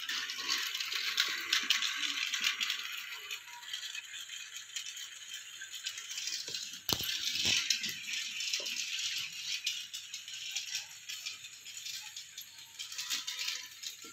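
Battery-powered toy train running on a plastic track, its small motor, gears and wheels rattling steadily, with a single knock about seven seconds in.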